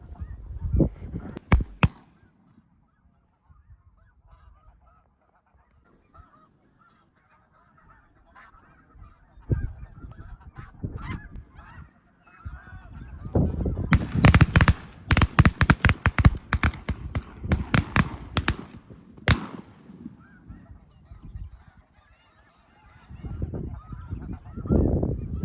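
Snow goose honking, a chorus of high, yelping calls that thins to faint around the first several seconds and comes back loud and harsh about halfway through and again near the end.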